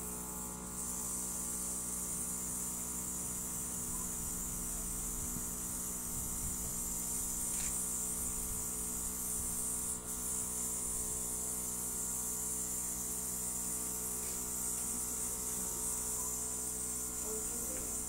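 Airbrush makeup compressor running with a steady hum, and the airbrush gun hissing air as it sprays.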